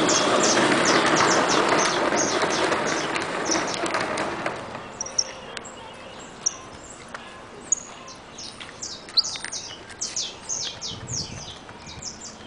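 Saffron finch calling: short, sharp, high chirps in quick irregular series through the second half. A louder broad rushing noise fills the first four or five seconds and fades out.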